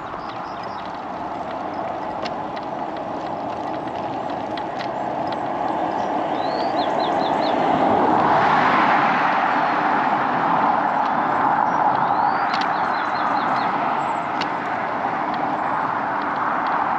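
Rushing wind and road noise on the microphone of a bike-mounted camera while cycling, building to a louder level about halfway through. A bird sings a short phrase of quick high notes twice over it.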